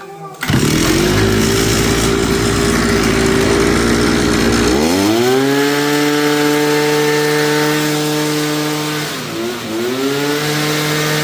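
Two-stroke brush cutter engine catching about half a second in and running steadily, then revved up to high speed near the middle, with a brief drop and rise again near the end. It keeps running rather than stalling, with its clogged exhaust cleared.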